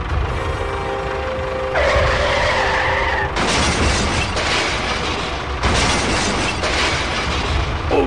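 Tractor engine sound effect: a steady low engine rumble, with a loud rushing hiss layered over it from about three and a half seconds in.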